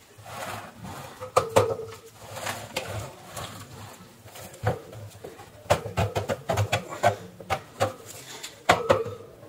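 Irregular sharp clicks and knocks from a bug zapper's plastic-coated wire cage and plastic housing being handled and shifted. Two of the knocks, about a second and a half in and near the end, are louder and ring briefly.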